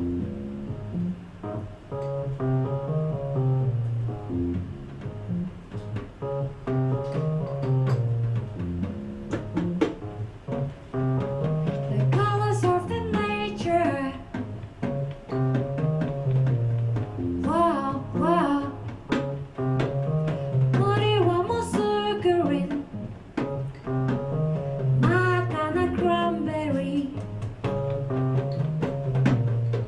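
Live band of piano and drums playing a gentle song, with a steady low line in the piano's left hand. About twelve seconds in a singer comes in with four drawn-out, wavering phrases.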